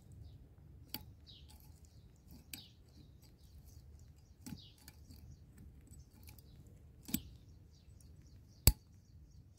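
A hand pipe cutter with red handles working on a buried water pipe: a few scattered sharp clicks and snaps, the loudest near the end.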